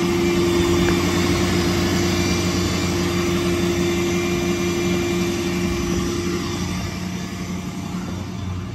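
Ford 6.7 Power Stroke V8 turbodiesel idling with a steady hum, a little fainter near the end.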